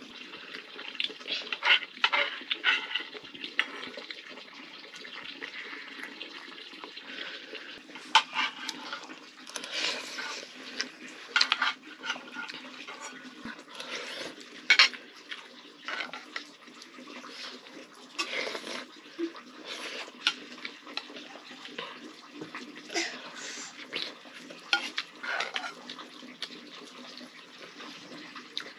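Eating noodles from a steel bowl: a metal spoon clinking and scraping against the bowl at irregular intervals, with wet slurping and chewing between the clinks.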